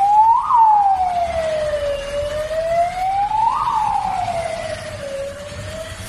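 Fire engine's siren wailing on an emergency run, its pitch sliding slowly up and down about every three seconds. It is loud as the truck passes and fades near the end as it pulls away.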